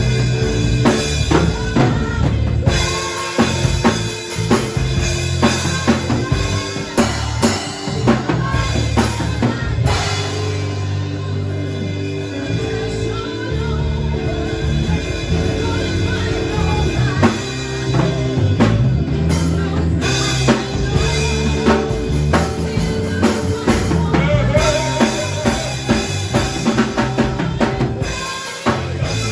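Music led by a drum kit, with bass drum and snare hits over a low, moving bass line.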